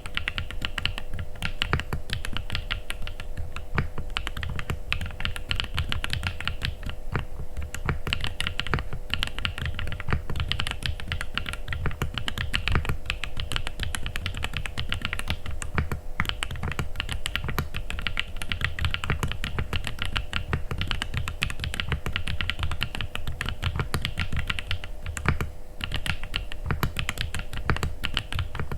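Continuous fast typing on an AJAZZ AC067 mechanical keyboard with RK Misty Rain linear switches and Cherry-profile keycaps: a dense run of key strokes and keycap clacks with only brief pauses.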